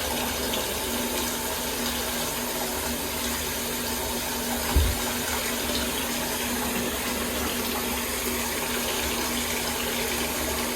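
Water running steadily from a tap into a bathtub. A single low thump about five seconds in.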